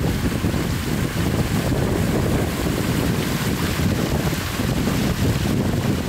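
A small waterfall rushing and splashing over granite boulders at close range: a steady, full rush of water heaviest in the low end, with wind noise buffeting the microphone.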